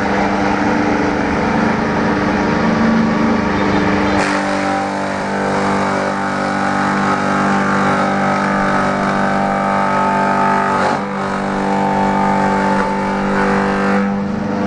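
Takyo TK1500 electric banana-stem shredder running with a steady motor hum while a banana stem is fed into its blades and shredded. The sound changes about four seconds in and dips briefly near eleven seconds.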